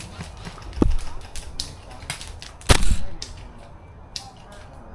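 Airsoft guns firing during a game: a scatter of light clicks, with two louder sharp shots about two seconds apart.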